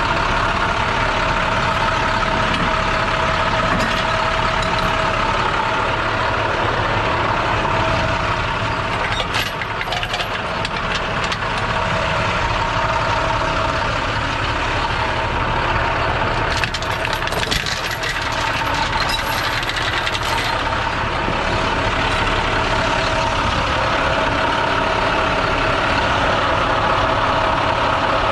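Heavy diesel truck engine idling steadily, with a constant whine over it. Clusters of metallic clicks and clanks come from tow fork and chain hardware being handled, about ten seconds in and again around eighteen seconds.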